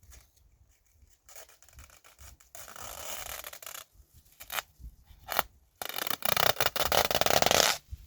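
Dry scraping and rubbing noise in several bursts of a second or two, with a few sharp clicks between them; the longest and loudest burst comes near the end.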